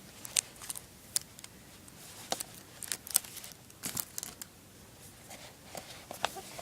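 A security label being peeled off a Blu-ray steelbook case: irregular small crackles and ticks of tearing sticker and crinkling plastic.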